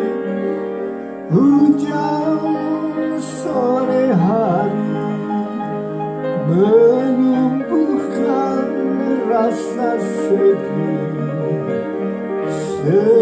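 A man singing while accompanying himself on an upright piano. The piano plays alone for the first second or so before the voice comes in.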